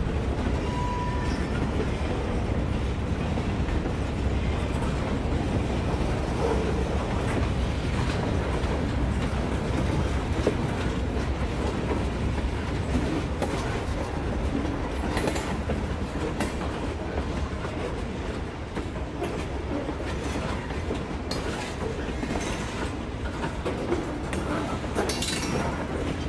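N scale model trains running past on the layout track: a steady rolling rumble, with scattered sharp clicks in the second half.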